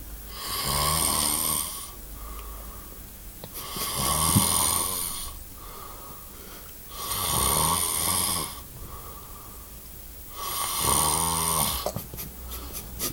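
A sleeping boy or man snoring loudly: four long snores, one about every three and a half seconds, with quieter breathing between them.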